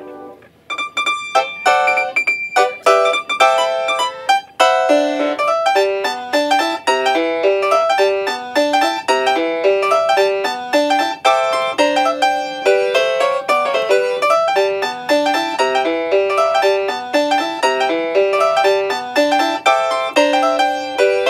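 Background music: a brisk piano tune of quick, short notes, starting a little under a second in.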